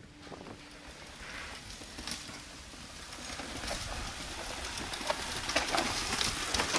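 Mountain bikes rolling down a rocky dirt trail: tyres crunching over gravel and stones, with scattered clicks and knocks. The sound grows louder as the riders come closer.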